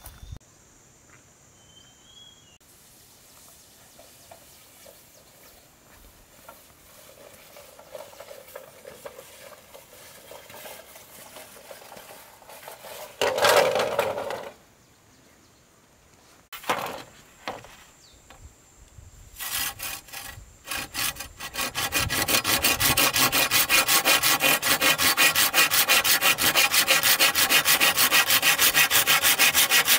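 Hand saw cutting through wood in rapid, even strokes, which start about two-thirds of the way in and keep going steadily to the end. Before that there are quieter handling noises and one brief loud scrape.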